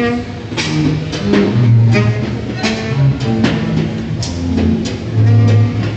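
Free-improvised live music on double bass, saxophone and snare drum: low bass notes under saxophone tones, with scattered sharp drum hits.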